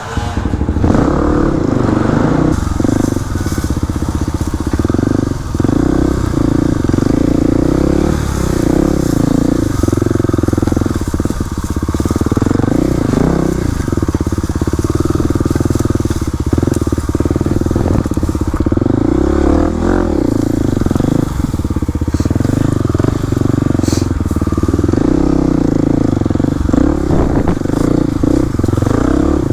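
Kawasaki KLX300 dirt bike's single-cylinder four-stroke engine running under way, its pitch rising and falling again and again as the throttle is worked, with a few short knocks along the way.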